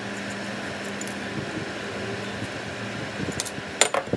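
Small metal parts of a kart engine reed cage being handled and set down on a steel workbench, giving a few sharp light clicks near the end, over a steady workshop hum.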